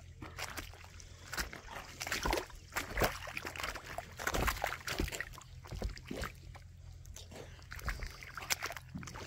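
Tidal water lapping and sloshing around a floating wooden boardwalk, with irregular small splashes and knocks.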